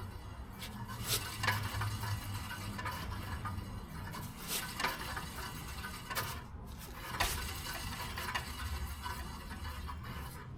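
Rear wheel of a Hyundai Elantra turning with an irregular scraping and rubbing noise, a few sharp scrapes standing out over a low steady hum. The noise comes from the rusted brake dust shield, deteriorating at the bottom and rubbing on the wheel.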